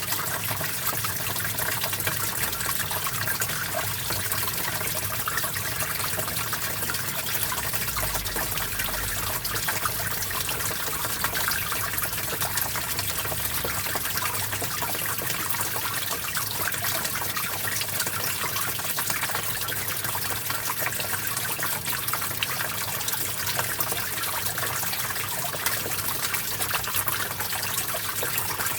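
Stream water flowing steadily, a continuous trickling and splashing without pause.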